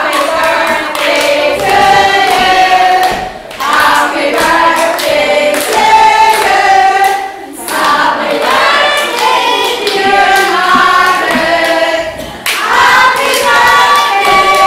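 A group of women singing together, with hands clapping along. The singing pauses briefly between phrases roughly every four seconds.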